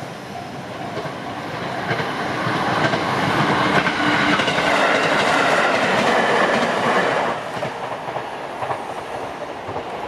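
A JR Central electric commuter train passes over a level crossing, its wheels clattering over the rail joints. The sound swells over the first few seconds and cuts back about seven seconds in as the last car clears. The crossing's warning bell rings steadily at about two strokes a second at the start before the train drowns it out.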